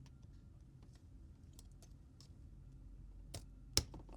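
Light scattered clicks and taps of small repair tools and parts on an open smartphone as the charging-port board is worked loose, with one sharper click a little before the end, over a low steady hum.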